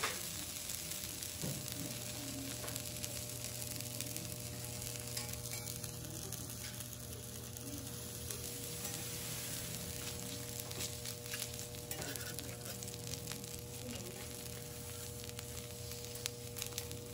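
A block of A5 wagyu beef searing on a hot steel teppanyaki griddle, its fat sizzling and crackling steadily, over a steady low hum.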